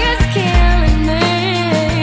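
Background pop song: a singer's voice over a steady, pulsing bass line.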